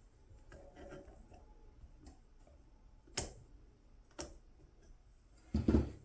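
Small metal clicks and taps from a Craftsman half-inch ratchet being reassembled, as its ring is closed back into place. There are sharp single clicks about three and four seconds in, and a louder clatter near the end.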